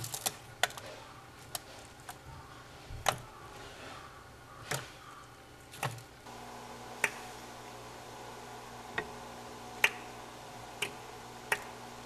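About a dozen sharp, irregular taps and clicks on a plastic feeding dish as eastern Japanese common toads snap at mealworms. A faint steady hum sits underneath.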